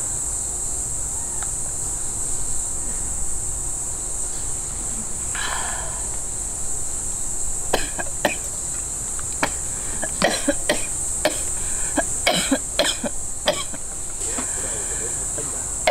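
A steady, high-pitched chorus of autumn insects. From about eight seconds in, a string of light clicks and knocks as camp cookware is handled on a metal table.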